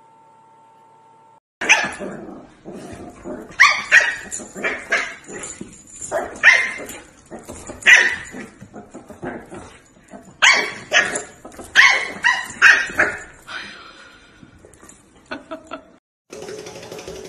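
Dogs barking: a dozen or so sharp barks, some in quick runs, over about twelve seconds, then a few fainter yips.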